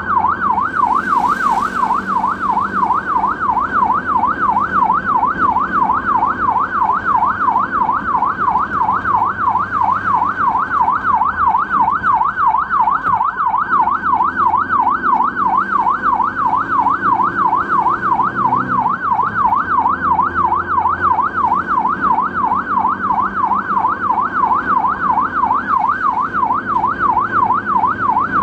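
Ambulance siren in fast yelp mode: a rapid rising-and-falling wail, about three sweeps a second, steady and unbroken, with a low rumble underneath.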